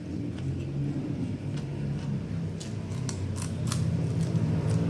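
Close-miked chewing and lip-smacking of a mouthful of rice and fish sambal eaten by hand: a string of sharp, wet mouth clicks, thickest in the second half, over a steady low hum.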